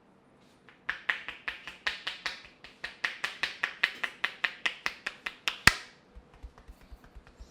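A fast, even run of sharp clicks, about five a second, ending in one louder click, followed by fainter clicks.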